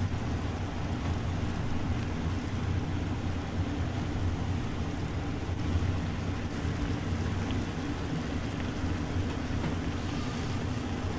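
Steady low hum with an even hiss over it: the background noise of the restaurant.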